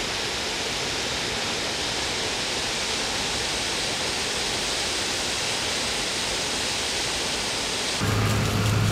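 Water of the Trevi Fountain cascading over its rocks into the basin, a steady even rushing. Near the end it gives way abruptly to a louder, steady low hum.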